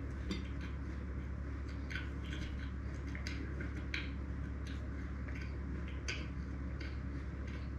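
Close-miked eating of small baklava pieces: irregular crisp crackles and sticky chewing sounds over a steady low hum.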